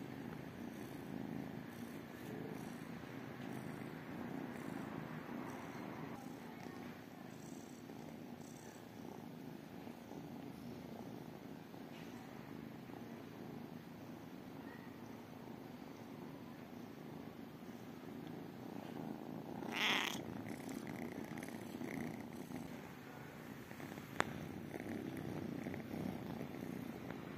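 Kittens purring steadily and close up, a continuous low rumbling purr. About twenty seconds in there is a brief louder noise, and a few seconds later a single sharp click.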